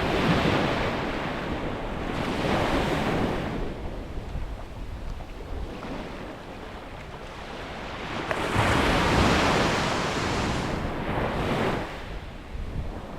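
Sea waves breaking and washing up on the shore, rising and falling in surges: one near the start, another around 2 to 3 seconds in, and a longer one from about 8 to 12 seconds in. Under them runs a steady low rumble of wind on the microphone.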